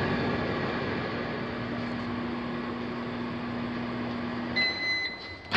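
Whirlpool over-the-range microwave oven running a short test cook, a steady hum with a low held tone. The hum stops about four and a half seconds in and the oven beeps to signal the end of the cycle.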